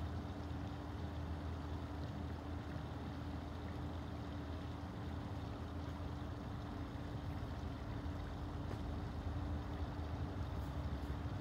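Steady low mechanical hum with a constant tone, unchanging, with no shot or impact.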